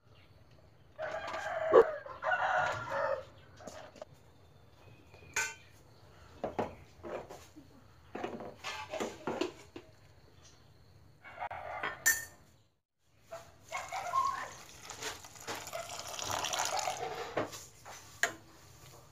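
A rooster crowing several times in the background over kitchen sounds: noodles boiling and being stirred in a steel pot, with a few sharp clinks of the ladle against the pot.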